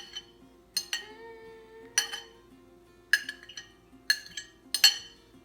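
A utensil clinking against a mixing bowl while batter is stirred: about seven sharp, ringing taps, roughly a second apart, over a faint steady musical tone.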